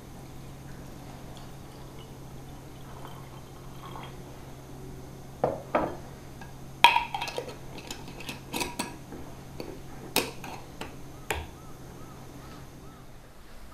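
Glass jar and metal screw lid clinking and knocking on a wooden tabletop as the lid goes on and is screwed down. A run of short clicks starts about five seconds in, the loudest a sharp ringing clink. A low steady hum runs underneath and stops near the end.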